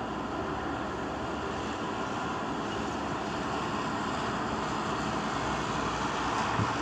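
Steady road and wind noise heard inside a car travelling at highway speed, with one brief low bump near the end.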